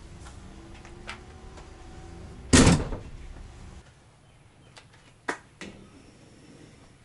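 Swing-away spare-wheel carrier on the back of a Toyota LandCruiser swung shut, closing with one loud clunk about two and a half seconds in. Near the end come two sharp clicks as the rear hatch of the SUV beside it is unlatched.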